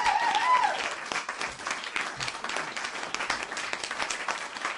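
Crowd applause, a dense run of clapping, with cheering voices in the first second; the applause drops a little in loudness about a second in and carries on steadily.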